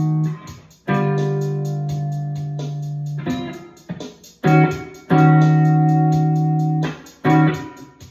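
PRS SE electric guitar tuned a half step down to E-flat, playing a blues: chords and bass notes are struck and left to ring out and fade, with fresh strikes about a second in, twice in quick succession near the middle, and once more near the end.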